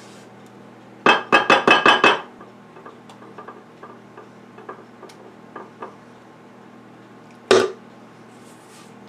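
Kitchen utensil knocked rapidly, about seven times, against a stainless steel stand-mixer bowl, with a ringing tone, then faint scraping clicks as batter is scraped out, and one more sharp knock near the end.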